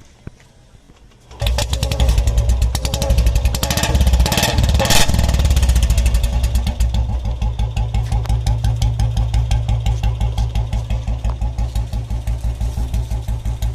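Royal Enfield Bullet single-cylinder engine with a Mini Punjab aftermarket silencer, starting about a second and a half in. It is loud and rises and falls for a few seconds, then settles into an even, steady beat at idle.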